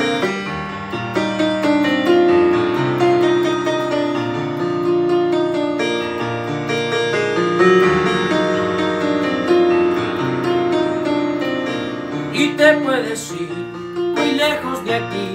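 Yamaha electronic keyboard playing an instrumental interlude of held chords under a melody line. About twelve seconds in, a young male voice comes back in over the keyboard, singing.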